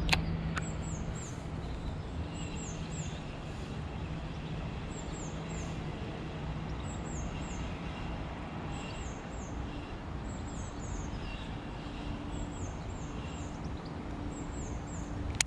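A small songbird calling repeatedly, short high descending notes in twos and threes every second or two, over a steady low outdoor rumble of wind on the microphone with a faint distant hum.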